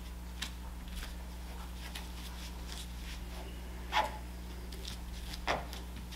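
Steady low hum of room tone, with a few short noises. The two loudest come about four and five and a half seconds in, each dropping quickly in pitch.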